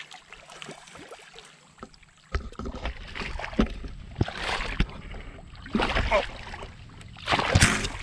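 A hooked catfish splashing and thrashing in shallow water at the river's edge as it is landed, with knocks and rustling of the camera being handled. It is fairly quiet for the first two seconds, then comes a run of loud splashes, the biggest near the end.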